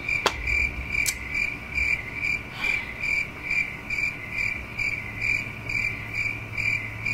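Cricket chirping, an even run of high chirps a little over two a second: the stock "crickets" sound effect dubbed in for an awkward silence.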